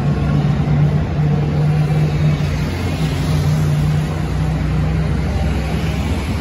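Road traffic close by: bus and car engines running as they pull past, with a steady low engine drone over the noise of tyres and traffic.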